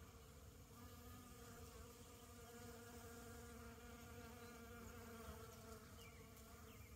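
Faint, steady buzzing of a bee, held at one pitch.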